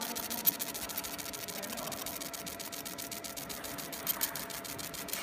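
Fiber laser engraving machine ablating the copper of a printed circuit board: a rapid, even run of high ticks as the beam sweeps line by line, over a faint steady hum.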